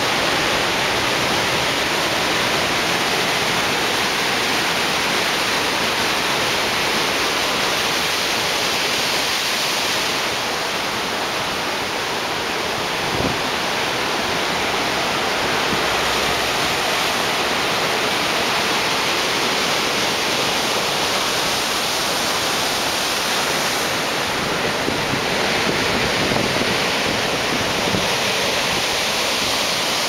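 Choppy ocean waves breaking over a rock shelf, a steady loud rush of surf and churning white water.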